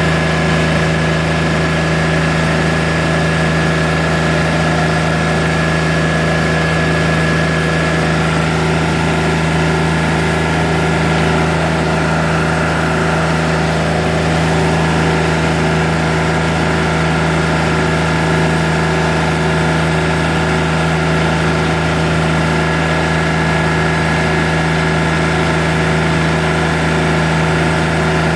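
Portable band sawmill running steadily under load: an even engine drone as the band blade cuts through an English walnut log.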